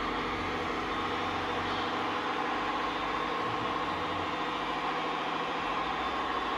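Scale RC truck's engine-sound module playing a steady diesel idle, an even chugging hum with a fast regular pulse.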